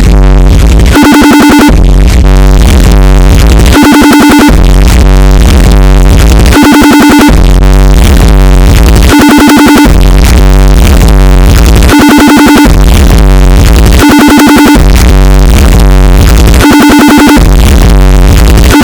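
FaceTime ringtone played heavily overdriven and distorted at full volume, with booming bass. The ringtone phrase repeats about every two and a half seconds, each cycle with a short clear high tone standing out from the harsh, clipped noise.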